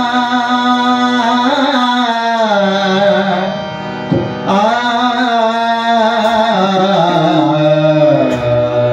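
Indian devotional music introduction: a voice singing a slow, wordless melodic line that bends and wavers in pitch over a steady sustained drone.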